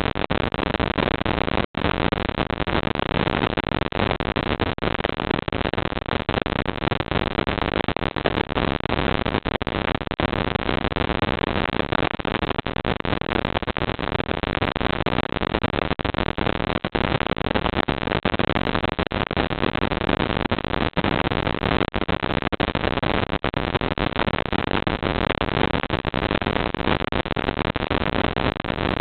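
Steady, even hiss from a security camera's built-in microphone, with no distinct events in it; it cuts out for an instant just under two seconds in.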